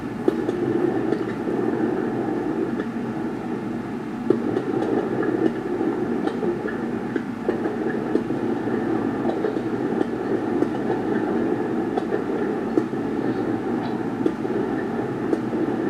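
Fireworks going off: a steady rumble of many blasts, with scattered sharp pops and crackles from bursting stars.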